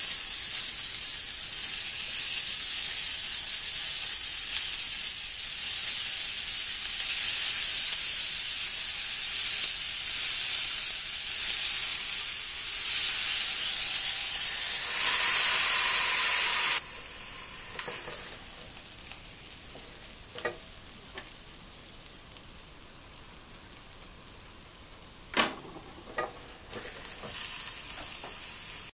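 Bacon-wrapped potato pieces sizzling loudly as they are laid on the hot ribbed plate of a Tristar contact grill. The sizzle cuts off suddenly about two-thirds of the way through. A quieter hiss follows, with a few knocks and clicks, the loudest near the end.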